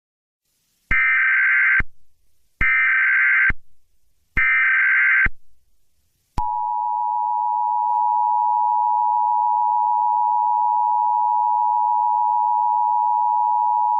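Emergency Alert System tones: three short bursts of SAME header data tones, each about a second long, then the EAS two-tone attention signal, a steady dual tone that starts about six seconds in and holds.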